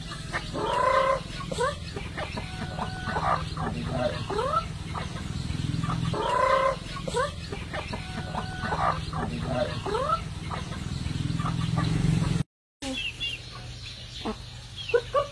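Native domestic chickens clucking in short repeated calls. The sound drops out completely for a moment about twelve seconds in, then the clucking goes on.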